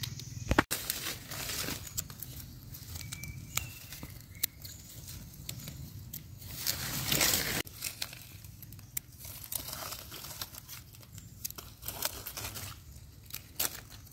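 Dry leaf litter rustling and crackling as hands pick small mushrooms from the forest floor, with scattered clicks. There is a sharp click about half a second in and a louder, longer rustle about seven seconds in.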